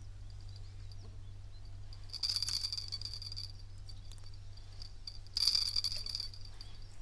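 Two short bursts of rattling, the first about two seconds in and lasting just over a second, the second shorter about five and a half seconds in.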